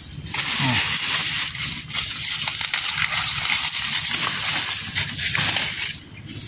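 Dry corn leaves, stalks and husks rustling and crackling as ears of corn are picked by hand; the rustling stops shortly before the end.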